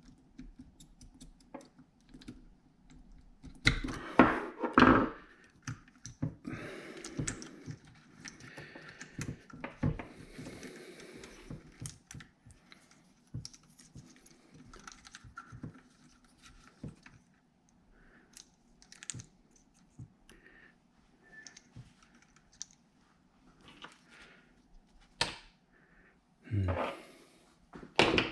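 Irregular clicks, taps and rustling of small plastic and metal parts being handled as wiring connectors on a fuel pump are pulled apart, with a louder burst of handling noise about four seconds in.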